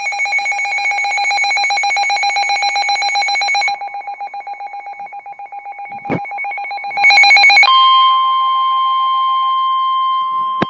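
Emergency alert tones: a rapidly pulsing electronic alarm trill drops back after about four seconds and flares up again near seven seconds. It then switches to a steady single high tone, the weather radio warning alarm tone that signals a warning broadcast. A click about six seconds in.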